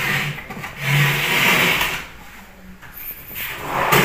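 Cabinet drawer being slid out and pushed back on its runners: three rubbing slides, the middle one the longest, about a second.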